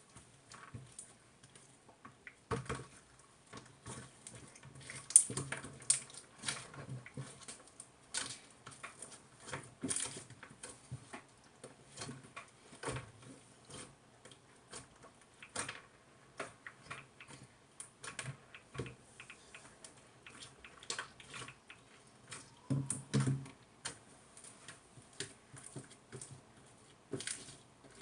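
Irregular light clicks and taps at an uneven pace, with a short cluster of duller, lower knocks about twenty-three seconds in.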